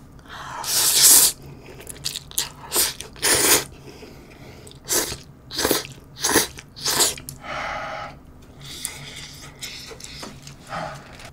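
Close-miked slurping and chewing of instant ramen noodles: a loud slurp about a second in, then a run of short wet chewing and slurping sounds.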